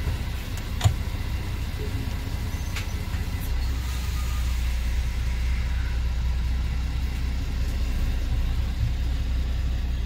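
Lorry's diesel engine idling, heard from inside the cab, its low steady note stepping up about three and a half seconds in. A single sharp click about a second in.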